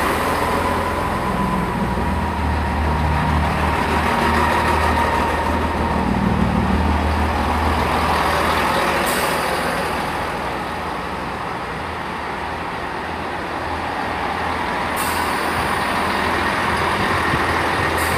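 Class 165 Turbo diesel multiple units moving slowly through the platform, their diesel engines running with a steady low drone and a thin whine in the first few seconds. A sharp high hiss starts suddenly about nine seconds in and again about fifteen seconds in.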